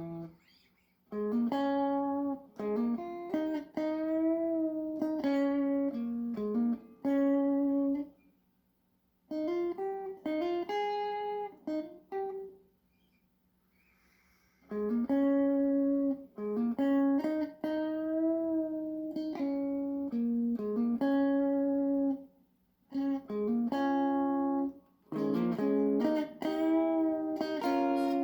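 Music: a single melodic line of sustained, bending notes in short phrases, with near-silent pauses between them, on what sounds like guitar.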